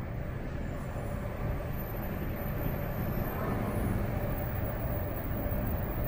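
Steady low rumble of city outdoor ambience, with distant traffic or rail noise and no distinct single event.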